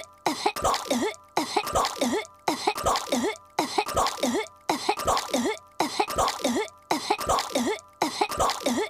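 A young cartoon girl's voice coughing hard, choking on a piece of gum. The same short coughing fit is looped over and over, about once a second, with a brief gap between repeats.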